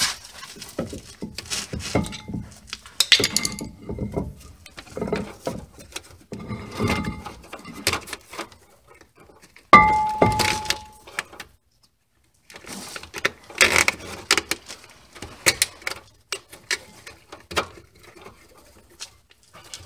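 Metal brake-line fittings and hand tools clinking, tapping and rubbing as a brake hose is worked out of its bracket. About ten seconds in comes one sharp metallic clank that rings briefly.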